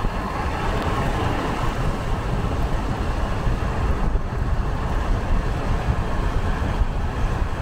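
Steady road noise of a car driving on a wet road, heard from inside: a continuous low rumble with tyre hiss.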